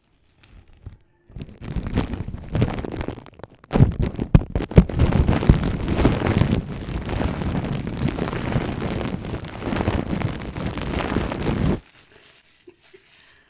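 Clear plastic wrapping crumpled and crinkled in the hands close to the microphone. It starts about a second in, breaks off briefly, then crackles loudly and without a break until it stops shortly before the end.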